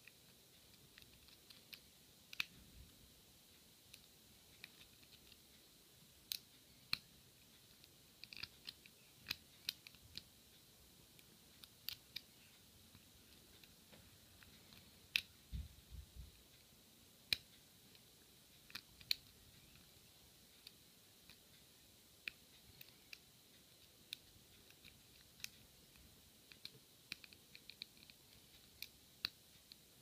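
Small, sharp metallic clicks at irregular intervals as a lock pick works the spool and serrated pin tumblers of a Sesamee padlock under tension, the pins setting and slipping. A dull low bump comes about halfway through.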